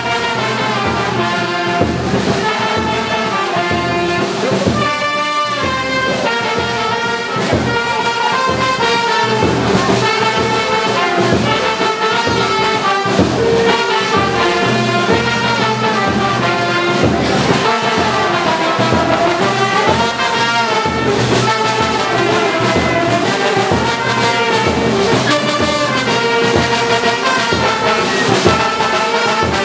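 Brass-led instrumental music: horns play a moving melody over a steady beat.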